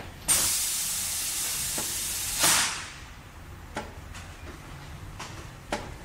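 Aerosol spray adhesive (Elmer's Craft Bond) hissing out of the can in one continuous spray of about two and a half seconds, louder just before it cuts off. A few light knocks follow.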